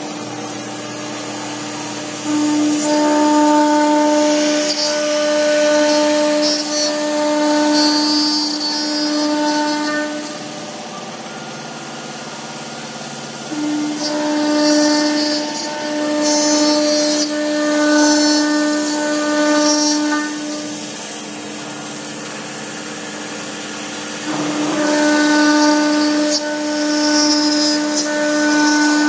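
Omni 2030 CNC router spindle running at a steady high whine while its bit mills a pocket into an aluminum sheet, with a hissing cutting noise that comes and goes as the bit moves. About a third of the way in, the sound drops off for a few seconds before the cut picks up again.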